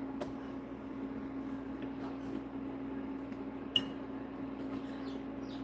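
Quiet kitchen background: a steady low hum under a faint hiss, one light clink just before four seconds in, and a few short, high falling chirps near the end.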